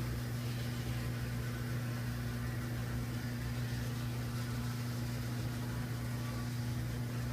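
HO-scale model locomotive running on its track: a steady electric hum with a light whir and hiss, unchanging throughout.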